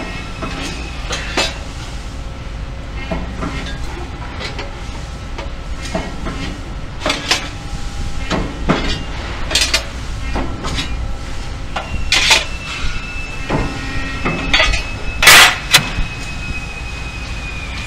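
Irregular metallic clanks and knocks as a sheet-metal part is handled and bent on a Cincinnati press brake, over the machine's steady low hum. The loudest clank comes about fifteen seconds in, and a thin high whine sounds for a few seconds before it.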